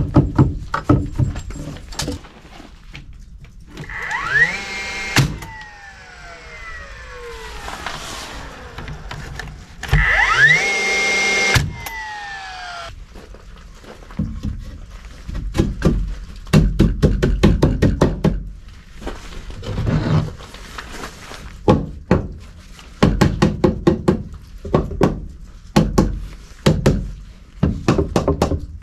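Knocks and taps on wooden framing lumber, with a hammer in hand. Twice, a circular saw spins up to a steady whine for a second-long cut and then winds down with a long falling pitch. Near the end come runs of quick knocks as blocks are worked into the joists.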